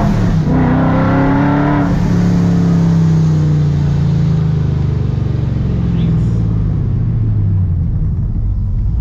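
Car engine heard from inside the cabin, climbing in revs for the first two to three seconds, then winding steadily down as the car eases off, over a constant road rumble.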